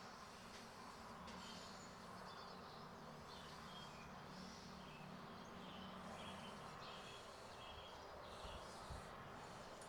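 Faint bird chirps, short and repeated, over quiet outdoor background noise.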